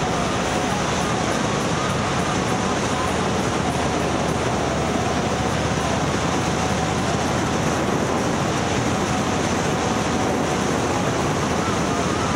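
Steady road and wind noise of a moving vehicle, with a faint steady whine running through it.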